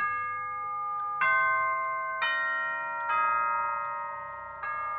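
Nine-tube grandfather clock chiming: its hammers strike the brass tubular chime rods one after another, playing a slow tune of five notes about a second apart. Each note rings on and overlaps the next.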